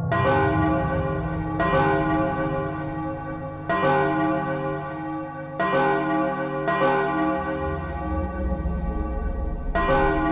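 Church bells ringing: about six strikes at uneven intervals, each one ringing on into the next, over a steady low hum.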